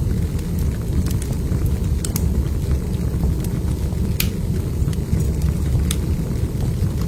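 Wood fire burning in a fireplace: a steady low rumble from the flames with sharp crackles and pops every second or so, the strongest a little past halfway.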